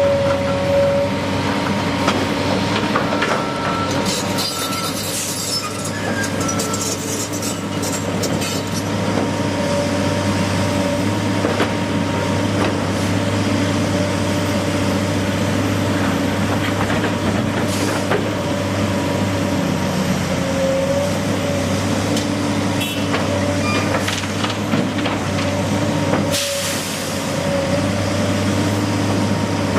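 Heavy engine-driven machinery running steadily with a constant hum and whine, overlaid by hissing and scattered clicks and clanks.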